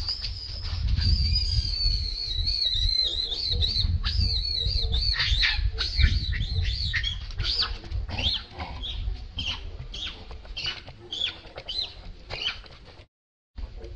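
Infant long-tailed macaque crying: a long, high, wavering scream that gives way about five seconds in to a run of short, high squeals, over a steady low rumble.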